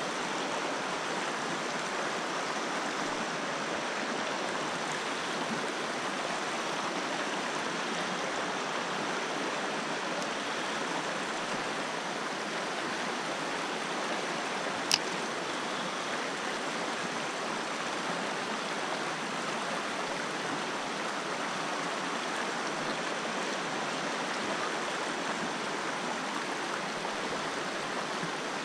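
Shallow mountain river running over a stony riffle: a steady rush of flowing water. One sharp click about halfway through.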